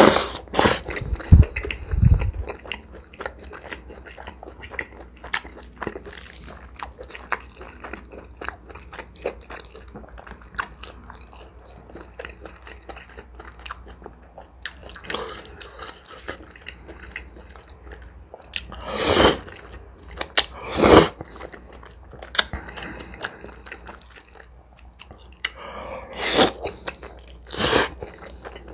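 Close-miked eating of spicy tomato spaghetti: noodles slurped into the mouth in a few loud, sharp bursts, near the start, twice about two-thirds through and twice near the end, with soft wet chewing and small mouth clicks between.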